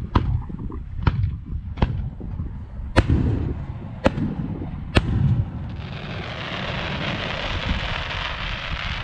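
Aerial firework shells bursting: about six sharp booms in the first five seconds, the loudest about three seconds in, each with a low rumbling tail. From about six seconds in there is a steady hissing noise instead of booms.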